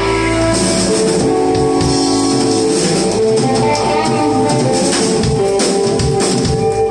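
Live blues band playing, with electric guitars, saxophone, bass and drum kit: long held notes over drums and cymbal strokes, typical of a song's final held chord before applause.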